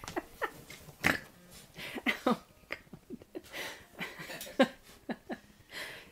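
Australian Shepherd puppy making a string of short, scattered grunting vocal sounds, each falling in pitch, while chewing and playing with a plush toy.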